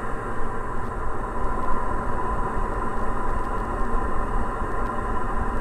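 Steady in-flight drone of a 2013 Diamond DA40 NG's Austro AE300 turbo-diesel engine and propeller in cruise, heard inside the cabin, with a constant hum and no change in power.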